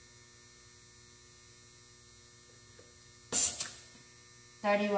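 Short hiss of air from a car tyre's valve stem as a pressure gauge is pressed onto it, in two quick spurts about three seconds in, over a faint steady hum.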